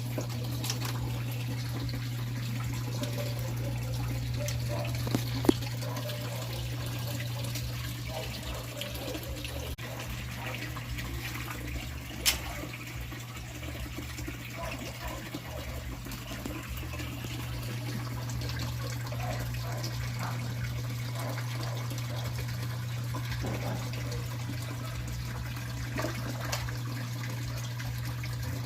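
Water running and splashing in a fish tank over a steady low hum, with a couple of brief knocks.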